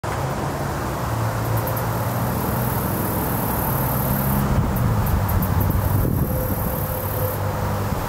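Steady low hum of distant motor traffic, with a faint high-pitched whine that comes and goes above it.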